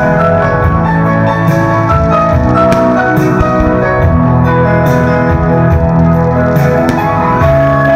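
Music with sustained chords and a slow melody, loud throughout.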